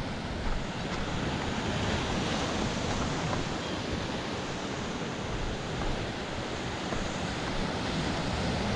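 Sea waves washing steadily against a rocky shore, mixed with wind buffeting the microphone.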